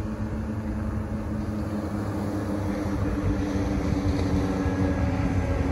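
Formation of five vintage piston-engine warplanes droning overhead, a steady engine drone with several slightly wavering tones that grows a little louder.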